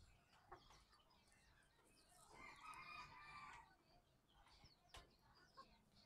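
A chicken gives one drawn-out call lasting over a second, about two seconds in, amid faint scattered high chirps.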